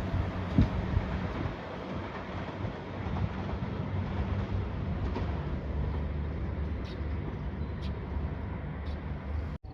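A JR Shikoku 2700 series diesel express train running past at close range: a steady rumble of engine and running gear, with one sharp rail-joint knock about half a second in. The sound cuts off abruptly near the end.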